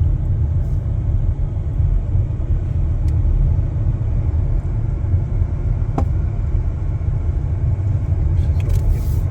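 Steady, loud low rumble with no distinct pitch, with a single sharp click about six seconds in.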